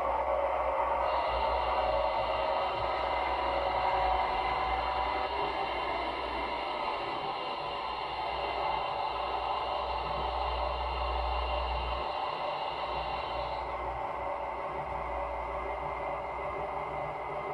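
O gauge model train running on its track: a steady rolling rumble of wheels on rail with a low hum. A thin, high motor whine starts about a second in and cuts off about four seconds before the end.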